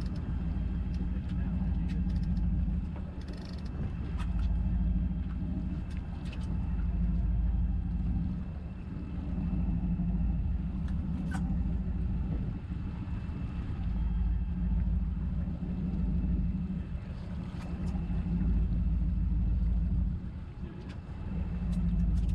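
Boat engine running steadily, a low drone whose level swells and eases every few seconds, with a few faint clicks over it.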